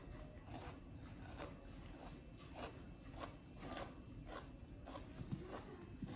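Baby monkey chewing food: faint, irregular crunching clicks, about two a second.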